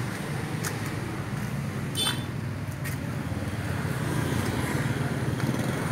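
Steady low rumble of street traffic, with a few light clicks and a short metallic clink about two seconds in.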